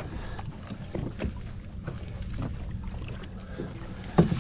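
Boat on open water: a steady low rumble of water against the hull and wind on the microphone, with scattered small knocks and a sharp loud knock near the end.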